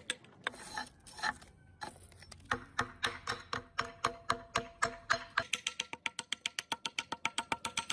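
Background music with a fast, even beat of plucked or struck notes, which thins out briefly near the start and then picks up again.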